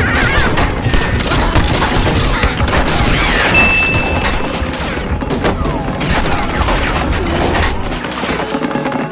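Cartoon action sound effects: a rapid, continuous barrage of bangs and crashes over background music, with a brief high tone about three and a half seconds in.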